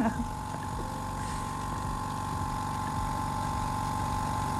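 Vevor twin-head electric air compressor running steadily as it fills its tank: an even hum with a held high tone, rising very slightly in level.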